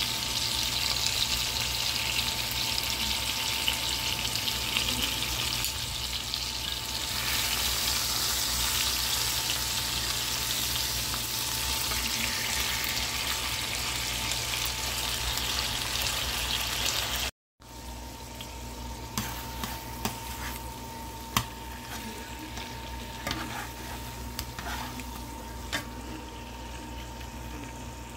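Two ribeye steaks frying in hot oil and juices in a nonstick skillet: a loud, dense sizzle that, after a sudden break about two-thirds of the way through, goes on quieter with a few sharp ticks of spattering. A thin steady high tone runs underneath.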